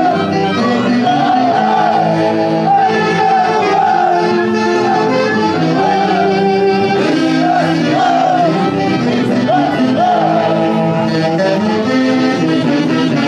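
A live folk orchestra playing a dance tune: a wavering melody with vibrato over sustained lower accompaniment.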